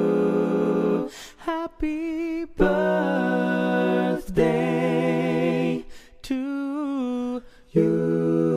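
Wordless sung vocal melody in several short phrases with strong vibrato and brief gaps between them, opening and closing on held chords.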